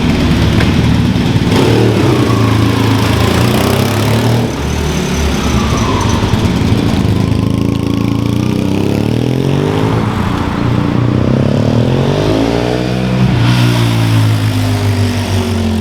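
Yamaha TDM 850 parallel-twin motorcycle engine running through a Shark slip-on exhaust, its engine speed rising and falling several times in the second half.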